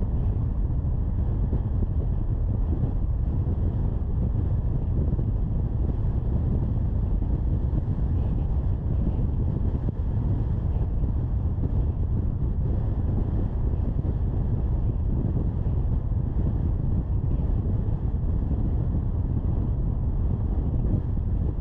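Steady low rumble of a car driving at road speed: tyre, road and wind noise with no distinct events.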